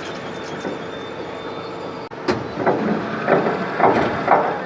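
Industrial gearbox running with a steady mechanical rumble, and from about halfway in a rhythmic knocking about twice a second: the abnormal gearbox noise being investigated.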